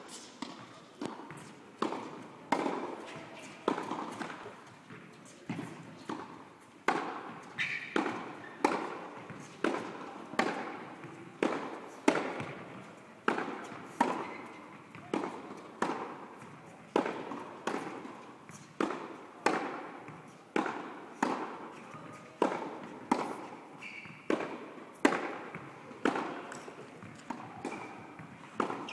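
Tennis balls struck by a racket and bouncing on the court, one sharp impact after another at roughly one and a half a second, each echoing in a large indoor tennis hall.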